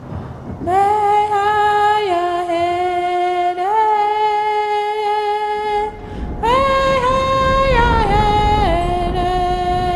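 Background music: a wordless voice sings long held notes in a slow, stepping melody, in two phrases with a short break about six seconds in. A low rumble sits under the second phrase.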